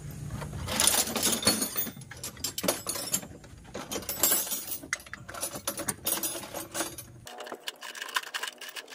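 Metal clinks and light knocks as a turbocharger and its fittings are handled and seated on an Isuzu 4JX1 diesel engine. The clinks come in an irregular run, busiest in the first few seconds.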